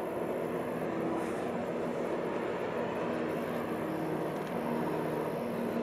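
A steady distant engine drone over a constant rush of noise, with a faint hum that wavers in and out.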